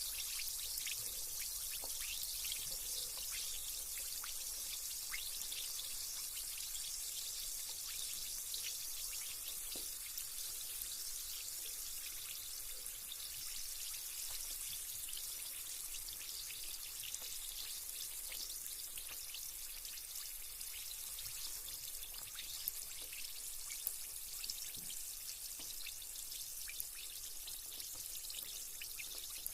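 Carbonated bath bomb fizzing in bathwater: a steady high hiss of bursting bubbles dotted with tiny crackles, slowly getting quieter.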